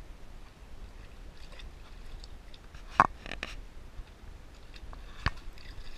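Boxer puppy splashing and snapping at the water in a plastic kiddie pool: scattered splashes and sharp knocks, the loudest about three seconds in and another about five seconds in.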